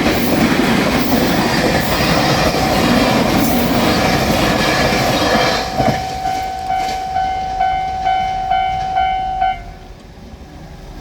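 A train passes over a Japanese level crossing, its running noise mixed with the crossing's electronic bell. The train noise ends about halfway through, leaving the bell ringing clearly at about two and a half dings a second until it stops shortly before the end.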